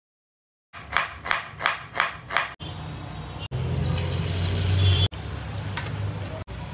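Personal blender grinding whole spices for biryani masala in five quick pulses. After a couple of seconds this gives way to sliced onions sizzling as they fry in hot oil.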